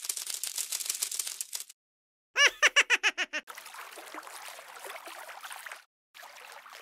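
Stop-motion cartoon sound effects: a rapid run of dry clicks, a pause, then a quick string of about eight bubbly bloops falling in pitch, followed by a soft rustling slide.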